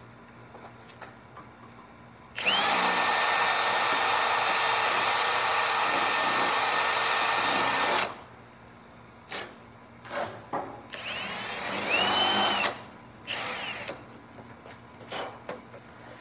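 Handheld power drill boring into a motorcycle's plastic front fairing at the mirror mount. It spins up into one long steady whine of about five and a half seconds, then runs in several shorter bursts, the last long one winding down in pitch.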